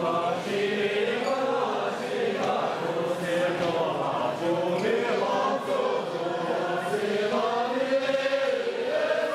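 A group of women singing together in unison, a chant-like song with long held notes that bend from one pitch to the next.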